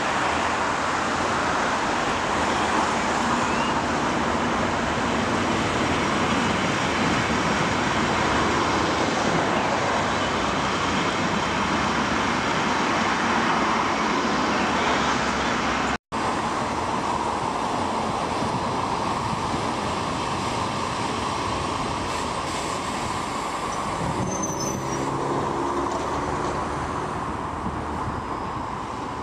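Electric commuter trains at a station platform: a steady rumble and hiss of trains standing and approaching. After a sudden cut about halfway through, the noise is quieter and steady, with a short motor whine that rises and falls near the end.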